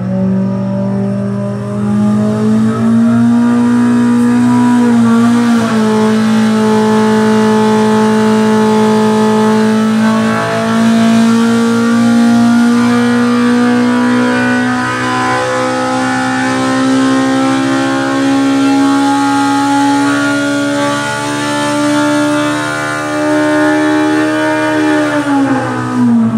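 Polaris RZR Pro R big-bore four-cylinder engine pulling hard on a dyno on a prototype 3D-printed 68 mm throttle body. Its pitch climbs slowly and steadily up through the revs, then drops back about a second before the end as the throttle closes.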